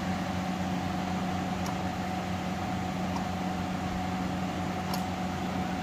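Steady machine hum with an even hiss, and a few faint light clicks as garlic cloves are dropped into a steel mixer-grinder jar.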